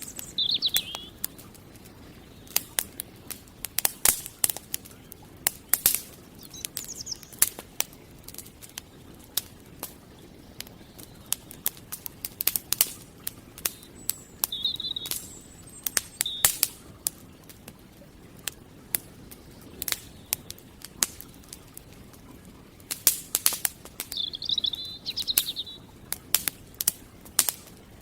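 Wood campfire crackling, with irregular sharp pops that come in quick clusters now and then. Small birds chirp briefly several times, in short high phrases, with a longer burst near the end.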